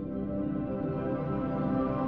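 Ambient intro music: sustained, layered tones swelling steadily louder.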